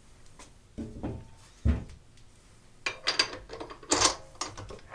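Metal tools being handled at a milling machine: two dull knocks in the first two seconds, then a quick cluster of sharp metallic clinks and clatter about three to four seconds in.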